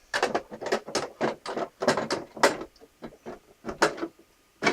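A run of hard plastic knocks and clicks as a Dimplex DXDHC10 dehumidifier's water tank is handled and fitted back into the unit.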